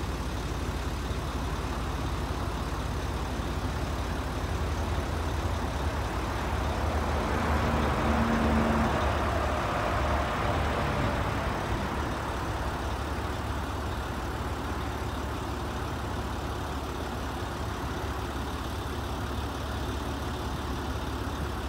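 Heavy diesel engine of a crawler crane running steadily while it lifts a steel rebar cage, working harder and louder for a few seconds about a third of the way through before settling back.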